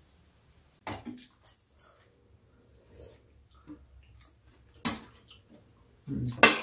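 Eating noises: a spoon and chopsticks tapping and scraping on bowls and a metal tray, with mouth sounds of chewing. There is a louder knock near the end.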